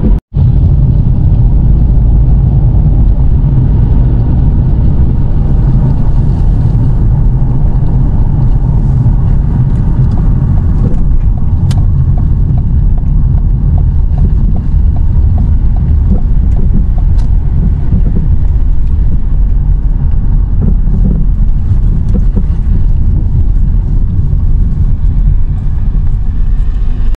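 A car driving, heard inside the cabin: a steady, loud low rumble of road and engine noise.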